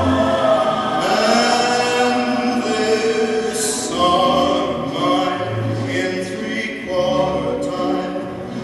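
A slow Christmas song in waltz time playing, with long held vocal notes over a backing choir and orchestra.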